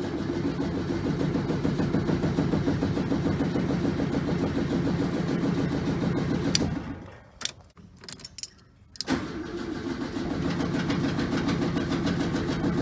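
Volkswagen Beetle's air-cooled flat-four being cranked over by the starter motor without firing, to build oil pressure while the carburettor is still unprimed. It cranks in two long spells with a pause of about two seconds between them, holding a few clicks.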